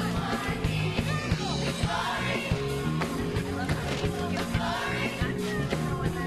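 Music with singing voices over a steady beat.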